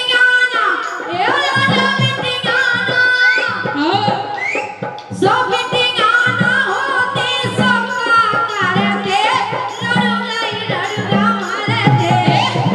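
Live Bundeli Rai folk song: a singer's voice through the stage microphones over a steady, repeating beat of folk drums.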